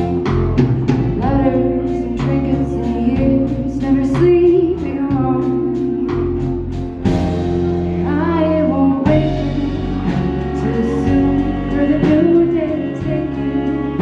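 A live band performing a song: a singing voice over regular drum hits and a bass line.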